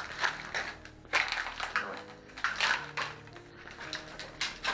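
Footsteps crunching over rubble and broken tile, about one step every second and a bit, over faint background music with low held tones.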